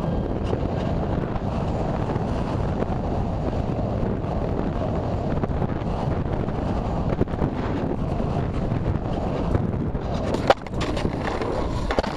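Air rushing past an onboard camera as an RC sailplane glides in low over the runway. About ten and a half seconds in there is a sharp knock as it touches down, then scraping as it slides along the asphalt, stopping near the end.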